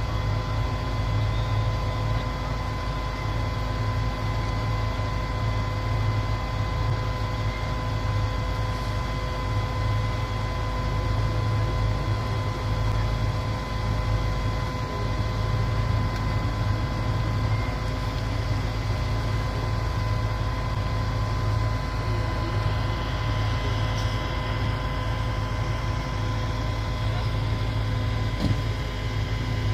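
Steady, unbroken drone of vehicle engines running, with a constant whine on top.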